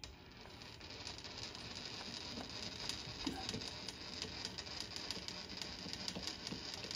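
Milling machine table being traversed slowly by hand, a faint run of small clicks and light rattle from the table feed as a dial test indicator sweeps along a parallel in the vise.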